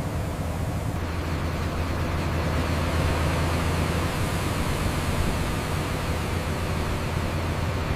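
A heavy engine running steadily, a low hum under a broad hiss.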